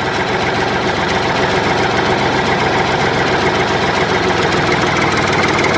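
Small DIY mini tractor engine running steadily at idle, with a rapid, even pulse.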